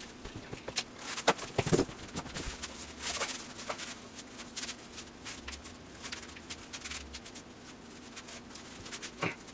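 Scattered clicks, knocks and scrapes of hand tools and metal parts being handled while a GM transmission is taken apart, with a louder run of knocks about a second and a half in and another single knock near the end, over a faint steady hum.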